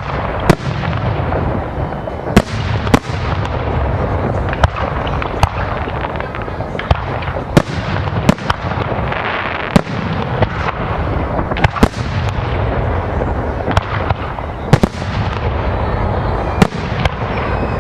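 Aerial fireworks display: a rapid series of sharp bangs from shells bursting, about one or two a second, each trailing off in an echo, over a steady rumble of many more bursts.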